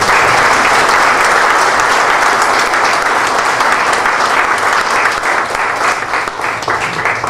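Audience applause: many people clapping together, dense and steady, thinning into scattered separate claps near the end.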